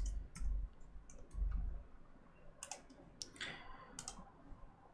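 Computer keyboard keystrokes and mouse clicks: about ten short, sharp clicks spaced irregularly, with a few soft low thumps, as a line of code is edited and the browser page refreshed.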